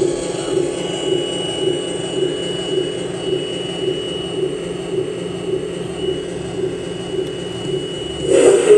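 Electronic drone from a mini tape recorder played through a Line 6 delay pedal: a low hum that pulses about twice a second under a thin, steady high whine. Near the end the whine stops and the sound jumps abruptly to a louder, brighter tone.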